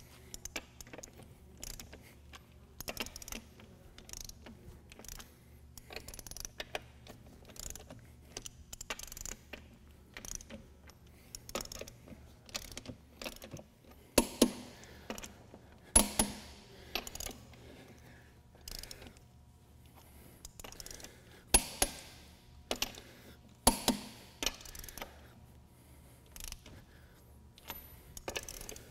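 Torque wrench working the wheel nuts on a truck wheel: repeated ratchet clicking, with several louder sharp clicks spread through, the click of the wrench reaching its set torque.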